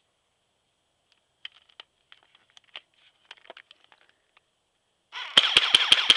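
Faint scattered clicks, then about five seconds in an electric airsoft Thompson M1A1 opens up on full auto: a motor whir under a rapid, even rattle of shots at about eight a second. The rate of fire is held down by a low battery.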